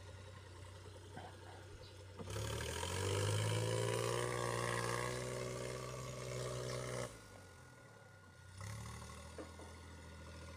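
Tractor engine working under load. About two seconds in it revs up and runs loud and strained for roughly five seconds, then drops back to a quieter, steady run.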